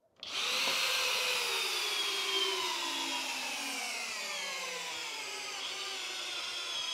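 Flex FX1271T 24V brushless hammer drill starting in first gear, turbo off, driving a long lag screw into stacked pine boards. Its motor whine sinks steadily in pitch as the screw goes deeper and the load builds.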